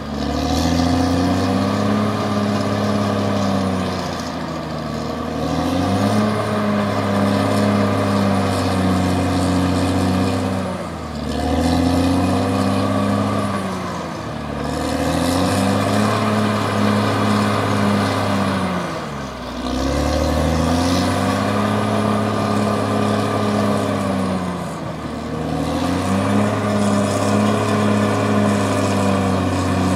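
Caterpillar D6R XL bulldozer's diesel engine working hard. Its pitch sags and recovers every few seconds as the engine takes load and lugs down.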